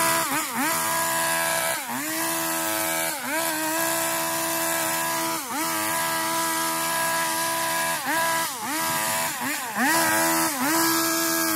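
A garden power tool runs at full speed, its pitch dipping sharply and recovering several times as it bogs under cutting load.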